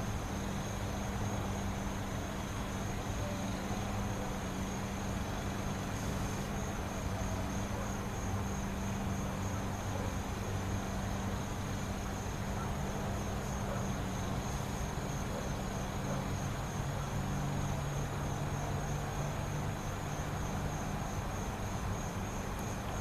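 Vintage ILG box fan coasting down after being switched off, unoiled: a steady low hum with a faint high whine. A slightly lower tone comes in about two-thirds of the way through.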